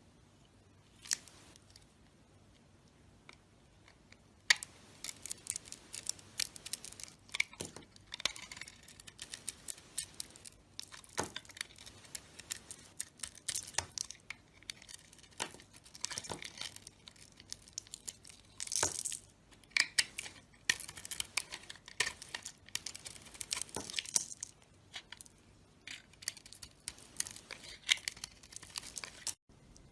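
A knife carving dry soap: a single click, then from a few seconds in a long run of crisp scraping and crackling cuts with crumbling flakes.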